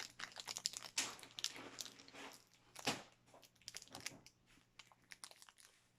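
Foil Pokemon booster pack wrapper crinkling and crackling in the hands as someone struggles to tear it open, in faint, irregular rustles.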